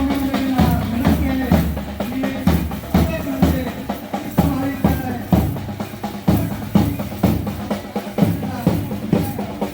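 Music with a steady drum beat, about two beats a second, and a tune over it.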